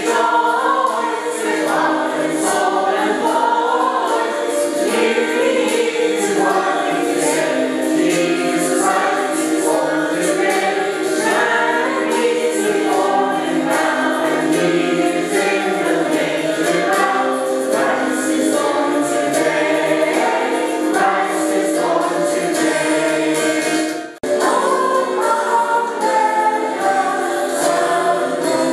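Mixed church choir of women's and men's voices singing together in parts, with the sound briefly dropping out about 24 seconds in.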